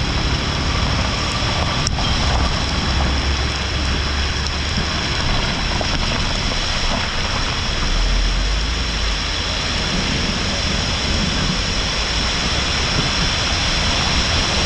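Muddy rainwater pouring down a roadside slope and rushing across the road: a steady rush of falling water. A low rumble joins it about eight seconds in as a car drives through the flowing water.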